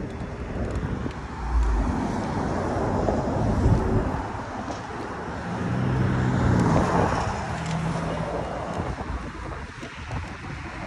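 Street traffic: a steady rush of passing cars, with one vehicle's engine hum swelling past about halfway through.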